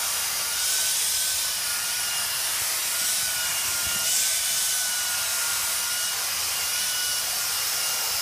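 Cordless handheld vacuum cleaner running steadily with a high whine over a rushing hiss, its pitch wavering slightly as the brush nozzle is worked over a basset hound's coat, sucking up loose shed hair.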